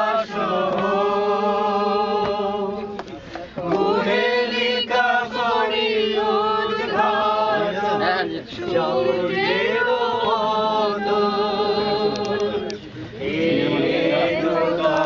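A small mixed group of men and women singing a song together without accompaniment, holding long notes with short breaks between phrases.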